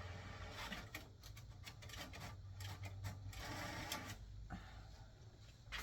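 Printer printing a page: several short spells of whirring, with clicks between them.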